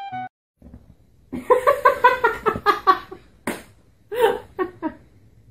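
A person laughing in quick bursts, with a sharp click about halfway through.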